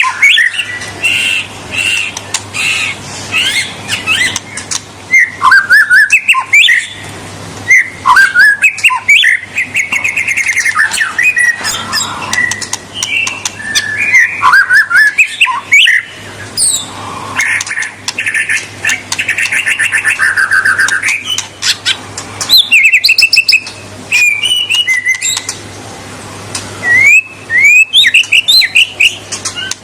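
White-rumped shama (murai batu) singing a long, varied song. It mixes loud whistled phrases, quick sweeping notes and fast trills, with short pauses between the bursts.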